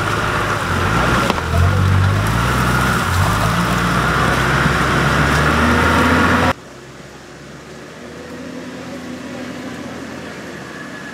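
Toyota Land Cruiser HDJ80's 4.2-litre turbo diesel engine revving hard under load, its pitch rising and falling as the truck churns up a muddy slope. About six and a half seconds in, the loud revving cuts off suddenly to a quieter, steady engine sound.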